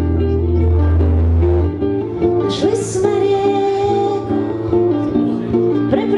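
Live acoustic guitar and bass guitar playing together. A long low bass note is held for the first second and a half or so, then plucked guitar notes continue, and a woman starts singing about halfway through.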